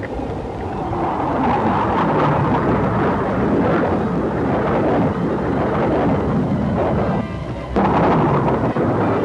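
Aircraft engines flying past low overhead: a loud rushing rumble whose pitch falls as each plane goes by, twice, with a brief drop a little before the end.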